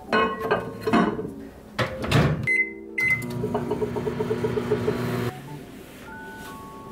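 A kitchen appliance being worked: a few clicks and clatters, two short beeps about two and a half seconds in, then a steady electric hum for about two seconds that stops abruptly.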